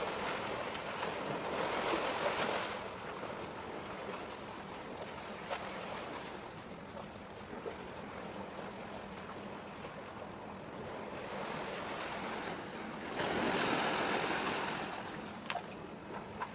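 Small waves washing against the harbour shore, with two louder washes, one about two seconds in and one near the end, over a faint steady low hum.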